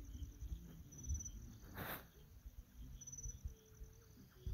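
Faint insects chirring, a thin high pulsing tone, over a low rumble of wind on the microphone. A brief burst of noise comes about two seconds in.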